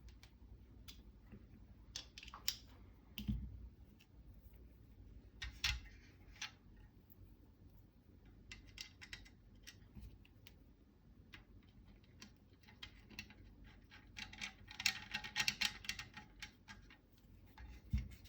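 Small metal clicks and taps as T20 Torx screws are handled and started into a rifle receiver with a Torx driver, with a quick run of rapid clicking about fifteen seconds in.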